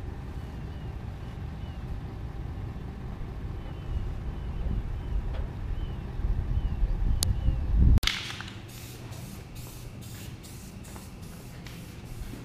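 Low vehicle rumble with wind buffeting the microphone; about eight seconds in it cuts off and gives way to short hisses of paint being sprayed onto a tractor hood, a few per second in a steady rhythm.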